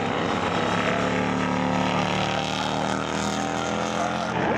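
Several racing motorcycle engines running at high revs, their pitch rising and falling as the bikes lap the track; one engine revs up sharply near the end.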